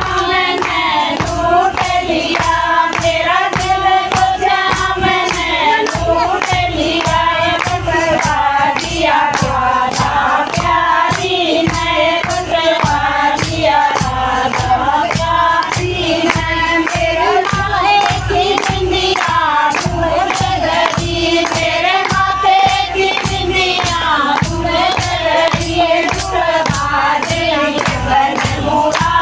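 A group of women singing a devotional Krishna bhajan together, without instruments, keeping time with steady rhythmic hand claps.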